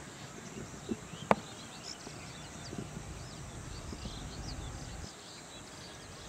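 Open-field ambience with faint bird chirps, a single sharp click about a second in, and a low rumble in the middle that stops suddenly.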